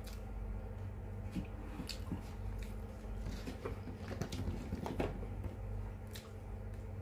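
A person eating paksiw na isda, fish stewed in vinegar, close to the microphone: wet chewing and lip smacks with scattered small clicks, over a steady low hum.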